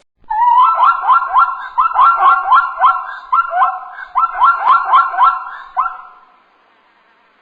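An animal calling in a fast series of short, high, pitched calls, about three a second, for some five and a half seconds before stopping near the end.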